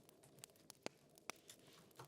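Fire crackling faintly, with a few irregular sharp pops.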